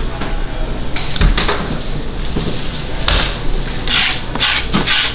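Kitchen work at a barbecue counter as meat is sliced and orders are packed: a few sharp knocks and short bursts of scraping and rustling over a steady low hum.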